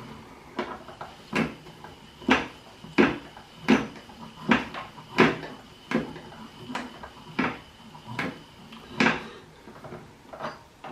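Klein toy Miele washing machine running, with a regular plastic clack about every three-quarters of a second over a faint steady high whine.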